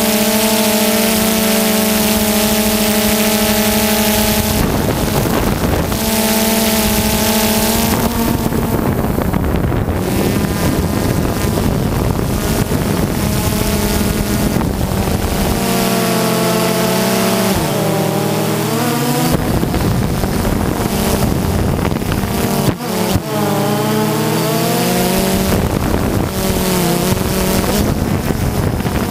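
Multirotor drone's motors and propellers whining, several tones holding and then gliding up and down in pitch as the motor speeds change, over a steady hiss of prop wash.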